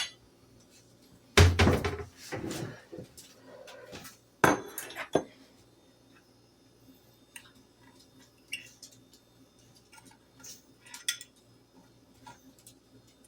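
Dishes and cutlery clattering as a plate is taken out and handled, with a fork clinking. A loud clatter comes about a second and a half in, a few sharp clinks follow around five seconds in, then only faint light clinks.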